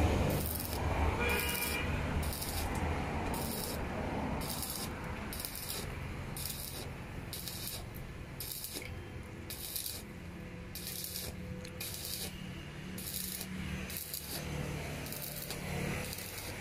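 Stick (arc) welder's arc crackling and sizzling as steel is welded, with a low steady hum underneath.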